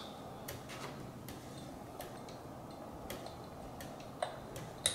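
Faint, irregular light ticks and clicks from hands working thread onto the guide wrap of a fishing rod blank, with a sharper click near the end.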